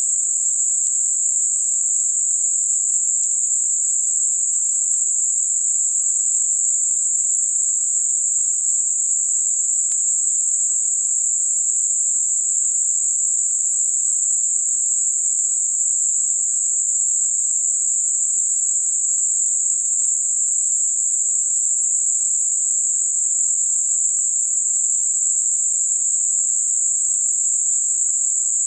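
Steady, high-pitched hiss of synthetic narrowband noise centred on 7.5 kHz, a bell-curve-filtered noise band spanning roughly 5.5 to 9.5 kHz, made as a masking sound for high-frequency tinnitus.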